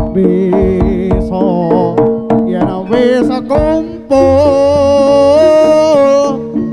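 Live jaranan accompaniment music: quick hand-drum strokes over steady held tones. About four seconds in, a long wavering melodic note sounds and holds for about two seconds.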